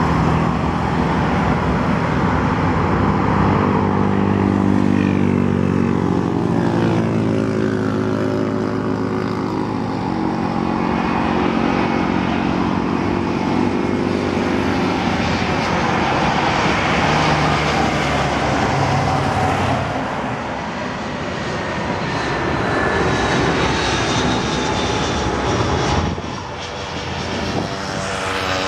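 Jet engines of an Airbus A320 airliner on final approach, a steady loud drone. Its tones slide down in pitch over the first ten seconds, and a thin high whine runs through the later part.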